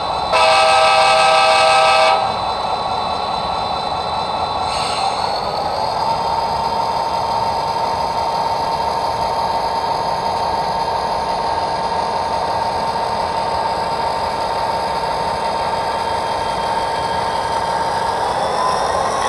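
HO-scale model diesel locomotive's sound decoder: a multi-chime horn blast that ends about two seconds in, then the diesel engine running steadily with a whine that steps up in pitch around five seconds in and again near the end.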